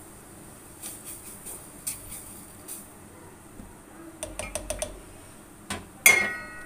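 Serving spoon working through cooked rice in a large non-stick cooking pot, with light clicks and scrapes, a quick run of about six light taps around four seconds in, and a sharp ringing clank of the spoon on the pot just after six seconds, the loudest sound.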